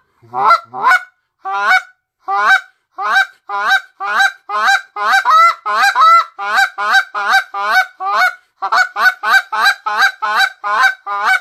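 Canada goose call blown in a fast run of buzz clucks: about thirty short, clipped honking notes, close to three a second, each one rising and breaking in pitch.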